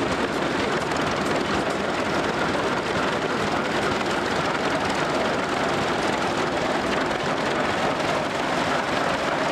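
Antique crawler tractor engines, a C.L. Best 30 in the lead, running steadily as the tractors drive slowly past.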